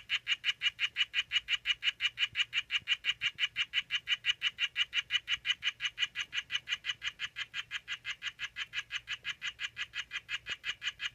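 Oophaga sylvatica poison dart frog calling: a long, steady series of short chirps, about six a second, a little softer in the second half.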